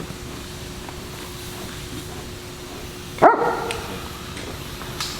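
A dog barks once, loud and short, about three seconds in, over a faint steady hum.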